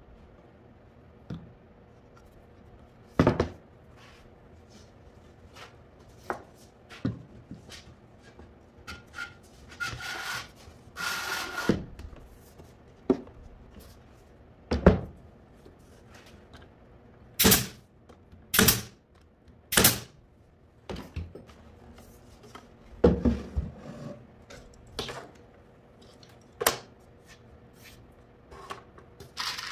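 A wooden drawer box handled on a workbench: irregular knocks and thunks as it is set down, turned over and shifted, with a couple of seconds of scraping about ten seconds in.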